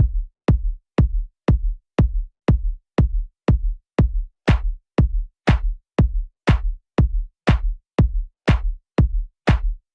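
Electronic dance music: a steady drum-machine kick at about two beats a second, with a hissing sweep over each beat that builds from about halfway through.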